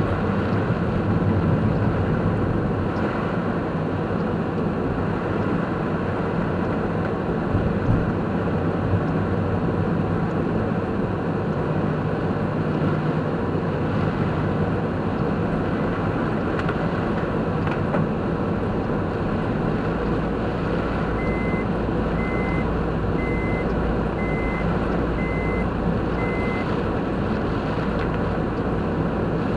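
Steady road and engine noise of a moving car, heard from inside. Near the end comes a row of six short, evenly spaced high beeps.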